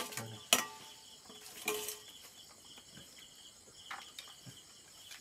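Crickets chirping steadily in the background, cut by a few sharp clinks of metal plates and a serving spoon, the loudest about half a second in.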